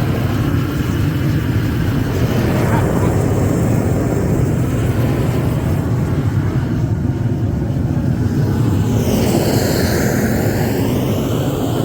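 Gas roofing torch burning with a steady roar as it heats torch-on bitumen membrane, the sound sweeping in tone near the end as the flame is moved.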